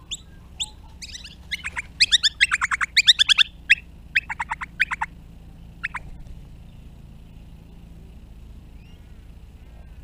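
Noisy miners calling: a rapid run of sharp, downward-sweeping notes, densest between about two and four seconds in, with a few single calls around it and a last call near six seconds.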